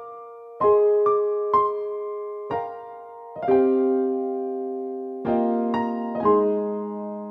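Slow, soft keyboard music, piano or electric piano: chords and single notes struck every half second to two seconds and left to ring out.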